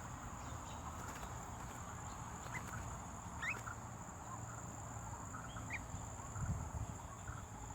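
Outdoor ambience of a steady high insect drone with a few short bird chirps, two of them rising sharply, over a low background rumble.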